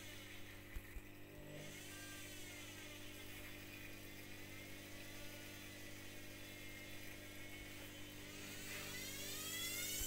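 Bruhm front-loading washing machine's drum motor whining over a steady low hum. Its pitch falls over the first second or two and rises again near the end, with a couple of light knocks about a second in.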